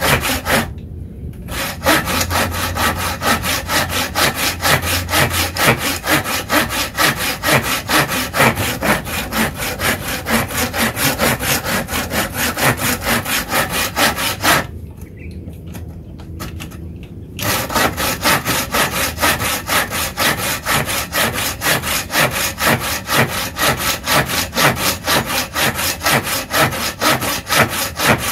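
Tekiro folding saw cutting through a wooden block with rapid, steady back-and-forth strokes. The strokes pause twice: for about a second just after the start, and for about three seconds midway.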